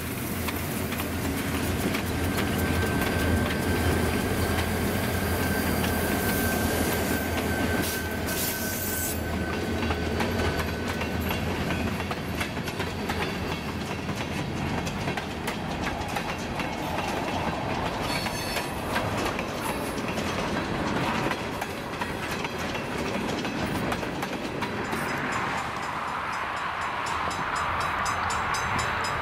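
A slow diesel freight train passing close by: the rumble of the trailing EMD F9B and GP20 locomotives' engines for the first several seconds, with a thin wheel squeal, then the freight cars' wheels clicking over rough jointed track. About 25 seconds in, the sound shifts to that of the train running at a distance.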